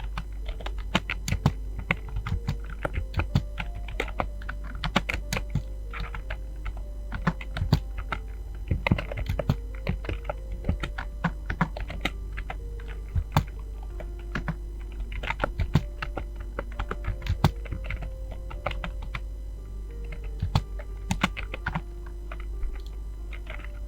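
Fast typing on a computer keyboard: a dense, irregular run of key clicks, several a second, with brief lulls.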